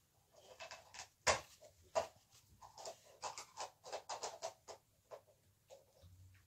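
Rustling and scratching of a yarn needle and yarn being drawn through a stuffed crocheted piece as it is handled and turned, in quick irregular bursts. A sharp click about a second in.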